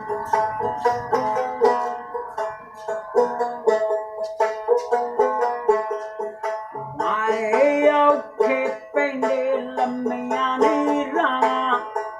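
A plucked string instrument played solo: a quick melody of sharp plucks over steadily ringing drone strings, with a few notes bent in pitch.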